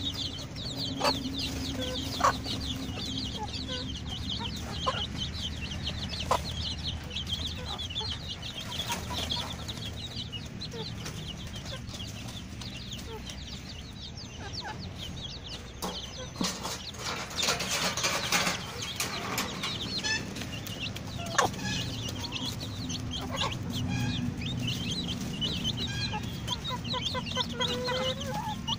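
A flock of chickens calling: a dense, constant chatter of short high peeps and clucks. There is a brief rustle about two-thirds of the way through.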